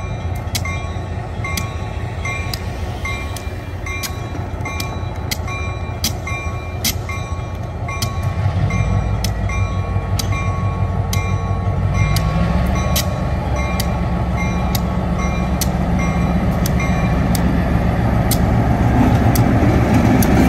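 A diesel switcher locomotive, the railroad's EMD SW1200, rumbles. Its engine speeds up about eight seconds in and again about four seconds later, and it grows louder toward the end. Meanwhile a bell rings about twice a second.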